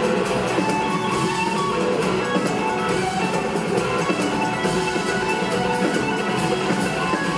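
Live rock band playing a loud instrumental jam: electric guitar and bass over keyboards and a full drum kit with busy cymbal hits.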